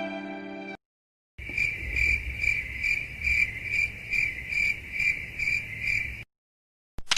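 Cricket chirping sound effect: a steady high-pitched chirp repeating about twice a second over a low background rumble, starting about a second and a half in and cutting off abruptly about a second before the end. A violin note fades out in the first second.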